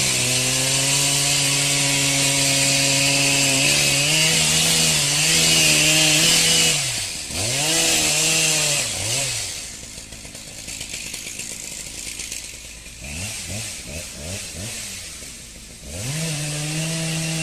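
Chainsaw running at full throttle, cutting into a large tree trunk with a loud hiss of chips. About seven seconds in the throttle is let off and blipped, with the engine note swooping down and up. It runs quieter for several seconds, with more swoops, then returns to a steady high rev near the end.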